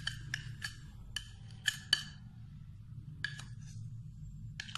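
Plastic spoon clinking against a glass mixing bowl as flour is scooped in. About eight sharp taps, each with a short glassy ring, come in two clusters with a pause of about a second between them, over a low steady hum.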